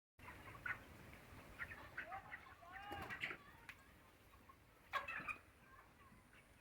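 Chickens clucking, a scatter of short calls with a few louder ones about one, three and five seconds in.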